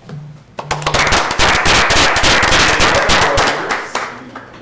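Applause from a small audience: many hands clapping, starting about half a second in, at its fullest for a couple of seconds, then thinning out near the end.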